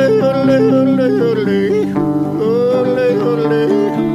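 Live country-folk music: an acoustic guitar strummed with a wordless melody line that bends and slides over the chords.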